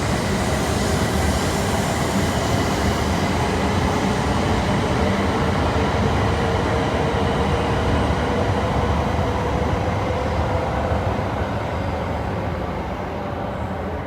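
Shinkansen bullet train moving through the station: a steady rush of wheel and running noise with a held electric-motor whine, dying away over the last few seconds.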